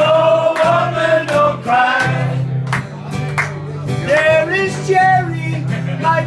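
A man singing with long held notes, accompanied by a strummed acoustic guitar.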